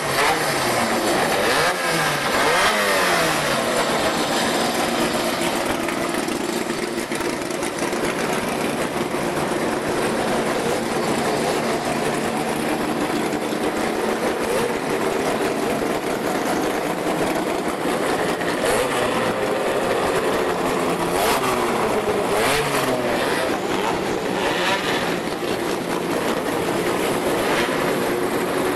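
Engines of Fiat 128- and 147-based racing saloons idling and being blipped as the cars creep past one after another, with the pitch rising and falling on the throttle now and then.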